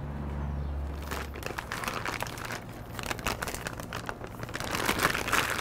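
Plastic gallon zip-top bag crinkling in a quick run of crackles as the bag of marinated steaks is handled and its zip seal pressed shut, starting about a second and a half in. A low hum stops at about the same point.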